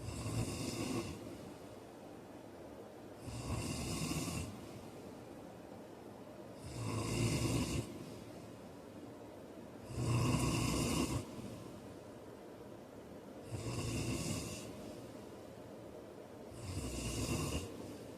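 A man snoring with a regular rhythm: six snores, one about every three and a half seconds, each lasting about a second.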